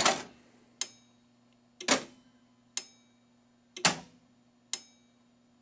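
Williams Whirlwind pinball solenoids firing one after another in the coil test, sharp clacks about once a second, alternating louder and softer, over a low steady transformer hum. The C-side coils are working again now that the burnt relay on the power supply has been replaced.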